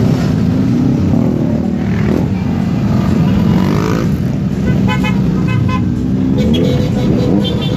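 Many big motorcycles pulling away together, their engines running and revving, with repeated short horn beeps in the second half.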